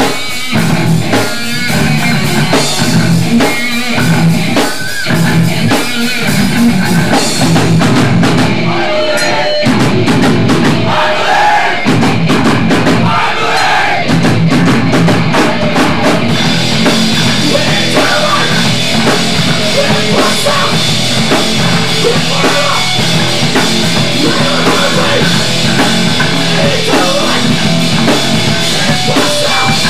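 Loud hardcore punk music: a rock band's drums, distorted guitar and bass playing a stretch with no clear vocals; about halfway through, a steady cymbal wash comes in on top.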